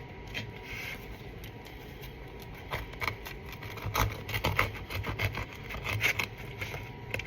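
Bread knife sawing through a crusty sourdough loaf: a low rasping stroke, then irregular crisp crackles as the crust breaks, from about three seconds in.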